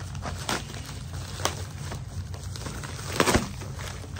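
Packaging being handled and opened: a few sharp crinkles and crackles, the loudest a short cluster about three seconds in, over a steady low hum.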